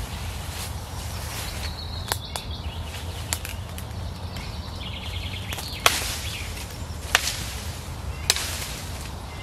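Hatchet chopping into branches: about half a dozen sharp, unevenly spaced chops, the loudest a little past the middle.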